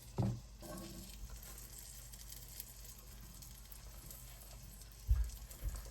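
Pollock roe (myeongran) sizzling as it is pan-fried, a steady fine crackle. A knock sounds just after the start and two low thumps come near the end.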